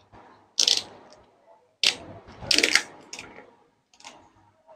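Paper wrapping around a new tablet rustling and crinkling as it is handled and pulled open, in about five short bursts, the loudest about two and a half seconds in.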